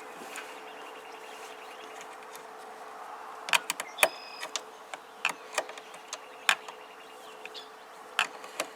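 A wrench working the nut on a car battery's positive cable terminal as it is tightened. Faint rapid ticking comes first, then from about three and a half seconds in, irregular sharp metallic clicks and taps. A steady hum runs underneath.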